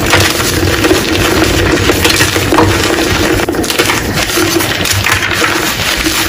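Blocks of gym chalk being crushed, a continuous dense crunching and crumbling with many small crackles.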